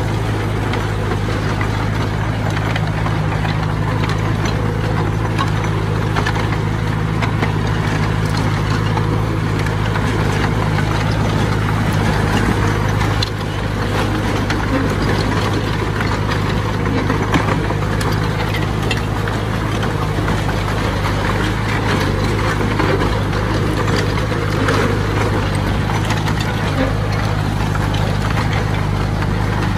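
Heavy earthmoving machine's diesel engine running at a steady pitch, a low drone with clattering and rattling over it.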